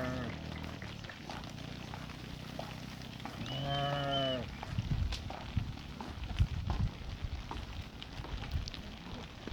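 Sheep bleating: a short call at the very start and a longer, wavering bleat about three and a half seconds in. Scattered low knocks and rustling follow.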